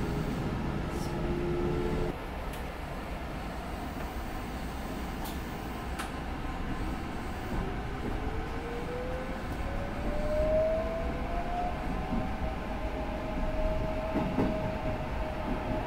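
Electric commuter train running, with the whine of its traction motors rising in pitch from about halfway through as it gains speed, then holding steady.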